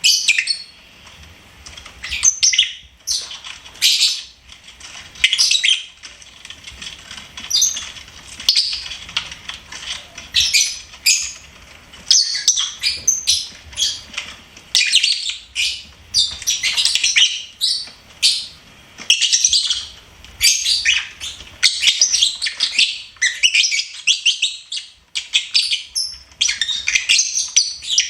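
Pet lovebirds chirping and twittering in quick high-pitched bursts, scattered at first and then almost nonstop from about halfway through.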